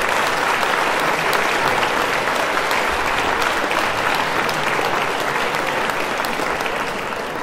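Concert-hall audience applauding, a dense steady clapping that begins to die down near the end.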